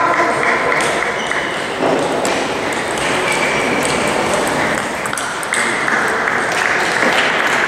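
Table-tennis rally: a celluloid-type ball being struck back and forth, a run of sharp, irregularly spaced pings off paddle and table.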